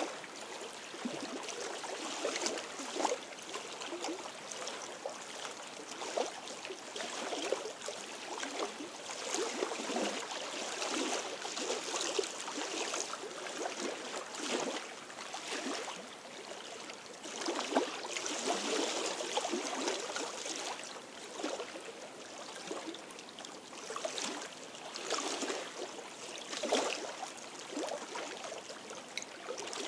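Small lake waves lapping and splashing unevenly against the shoreline rocks, swelling and easing every second or two.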